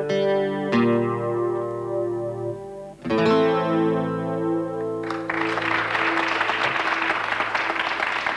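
Acoustic guitar playing the closing chords of a song: a held chord, then a last chord strummed about three seconds in and left to ring out. About five seconds in, the audience breaks into applause.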